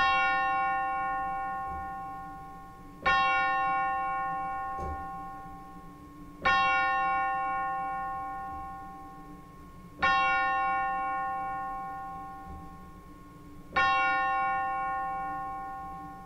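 A bell tolling five times, one stroke about every three and a half seconds, each ringing on and slowly fading before the next.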